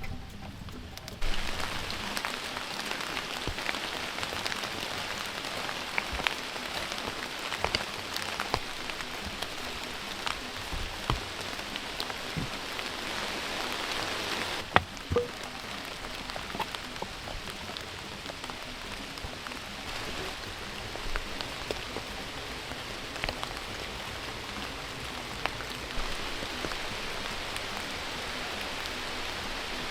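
Steady rain falling, with single drops landing close by as scattered sharp ticks. It starts abruptly about a second in, and one louder tap comes about halfway through.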